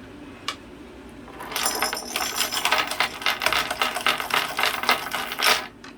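Metal chain rattled and jangled hard by a cockatoo, a fast, busy run of metallic clinks lasting about four seconds after a single click near the start.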